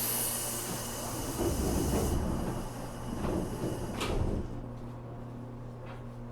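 Pneumatic doors of a JR Kyushu 415 series 1500 electric train car closing: a sudden hiss of air, then heavy rumbling thuds and a sharp knock about four seconds in as the doors shut. The car's steady equipment hum carries on underneath.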